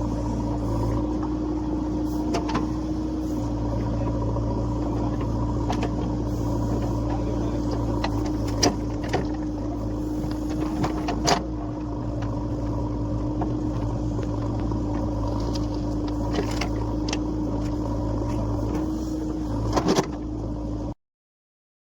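Heavy diesel engine of earth-moving machinery running steadily, with a few sharp knocks, and cutting to silence near the end.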